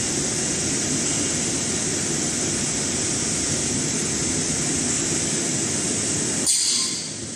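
A toilet paper and kitchen towel making machine running with a steady loud hiss and rumble. Near the end there is a short burst of hiss, and the running noise drops.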